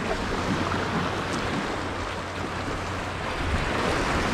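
Sea water washing and sloshing against jetty rocks in a steady rush, with wind rumbling on the microphone.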